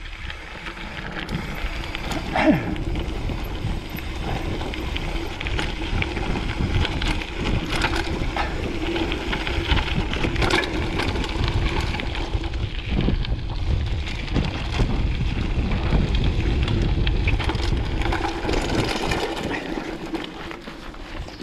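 Mountain bike riding over a dirt and gravel track: a continuous low rumble with many sharp clicks and rattles as the bike goes over bumps, and a faint steady hum.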